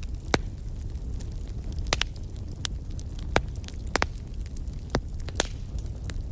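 Wood fire in a fireplace crackling, with sharp pops about every second over a steady low rumble.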